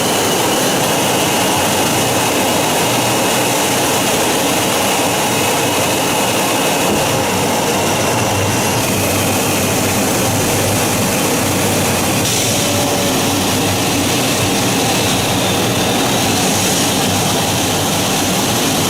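Su-57 stealth fighter's jet engines running, a loud, steady noise with a faint high whine through the first half.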